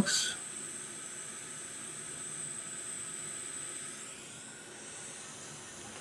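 Steady hiss of a hot-air rework station blowing onto a USB-C port's pins to reflow the solder, with a faint high whistle in the airflow that eases slightly near the end.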